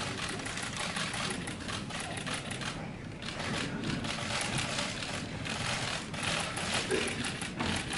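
Many still-camera shutters clicking in quick, overlapping runs.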